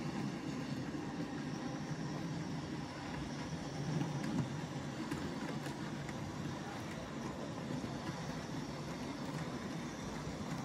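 OO-gauge model trains running on the layout, including a Bachmann J94 saddle-tank locomotive hauling a train of wagons: a steady low rumble of wheels and motors on the track, with a few faint clicks about four to six seconds in.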